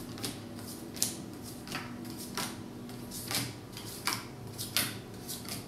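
Playing cards dealt one at a time onto two piles on a wooden table: a light slap as each card lands, a little over one a second in an uneven rhythm.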